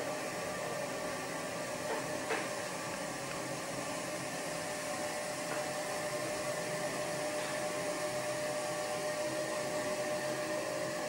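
Steady whirring hum and hiss of room machinery, with a constant faint tone. Two faint clicks come a little after two seconds in.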